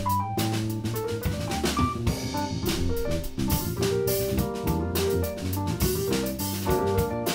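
Small live band playing an instrumental jazz tune: a drum kit with steady cymbal and drum hits over a bass line and keyboard notes, with guitar.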